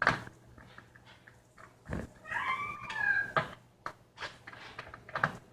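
Screwdriver work on the underside of an MSI GL62 laptop as its back-panel screws are taken out: a few scattered sharp clicks and taps. About two seconds in comes a squeaky whine of about a second with a wavering pitch.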